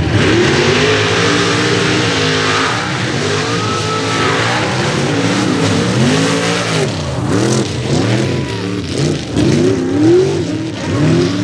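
Street-class mud racing pickup truck running at wide-open throttle across a hill-and-hole dirt course, its engine revving up and falling back over and over as it bounces over the humps. Hiss from spinning tires and spraying dirt in the first few seconds.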